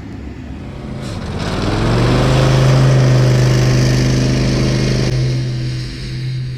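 An engine revving up about a second in, holding a steady high speed for a few seconds, then easing off near the end.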